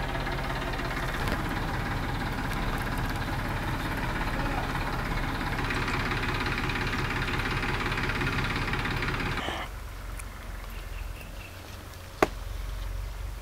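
A motor or engine running steadily with a fast even pulse, cutting off suddenly about ten seconds in; a single sharp click follows about two seconds later.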